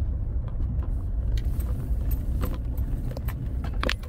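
Steady low engine and road rumble heard from inside a moving vehicle, with a few scattered light clicks and rattles in the cabin.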